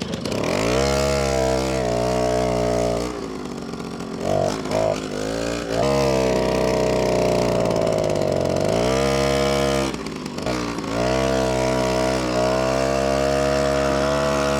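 Old moped's small engine running and being revved: it climbs up to speed, eases off about three seconds in with two quick throttle blips, picks up again, dips briefly near the ten-second mark and rises once more. The engine is running again after a spark plug change and a slight carburettor adjustment.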